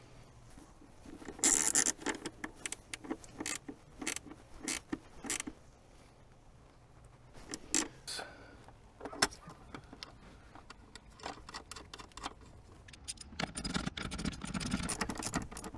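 Small metal parts and tools clinking against the battery terminal hardware as they are handled. Near the end comes a quick run of clicks from a ratchet wrench tightening the positive terminal clamp nut on a car's 12V battery.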